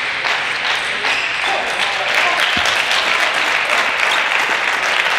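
Audience applauding: dense, steady clapping that runs on without a break.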